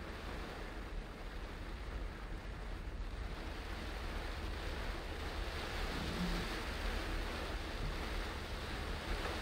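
Car tyres hissing on a rain-soaked road, with rain on the car, over a steady low road rumble; the rushing hiss grows a little louder about halfway through.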